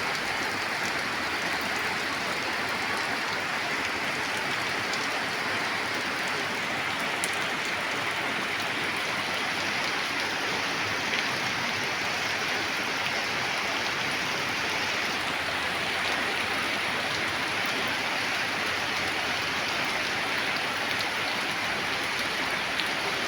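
Steady rain falling, with a few single drops ticking now and then.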